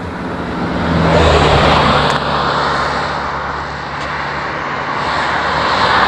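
Motor vehicle passing close by: a steady engine hum under tyre and road noise that swells about a second in, eases off, then builds again near the end.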